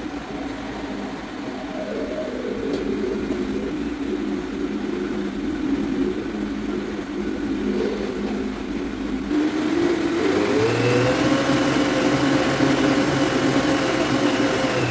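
Countertop blender motor running on low speed, churning a thick potato batter. About nine and a half seconds in, the motor pitch rises and it gets louder as the speed is turned up.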